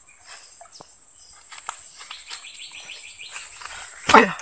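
A wild bird calling with a quick run of repeated chirps over a steady high-pitched insect hum, with light rustles and steps through undergrowth. Near the end comes a short, loud vocal sound from a man, falling in pitch.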